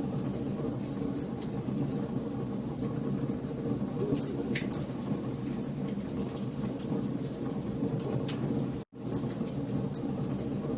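Fire in a fireplace crackling: frequent sharp pops and snaps over a steady low rush of flame. The sound cuts out for an instant about nine seconds in.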